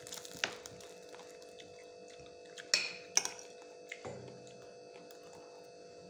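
Crisp deep-fried chicken skin crackling as it is torn apart by hand: a few sharp crackles, the loudest a little under three seconds in, over a steady hum.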